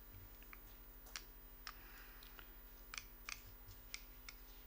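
Near silence: room tone with a faint steady mains hum and a dozen or so faint, scattered small clicks.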